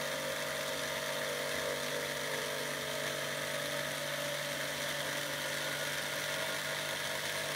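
Corded electric jigsaw running steadily as it cuts through a sheet of plywood.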